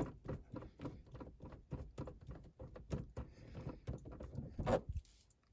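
Hands unscrewing a car's old gear-shift knob off the threaded shift lever: irregular soft clicks, taps and rubbing, about three or four a second, that thin out near the end.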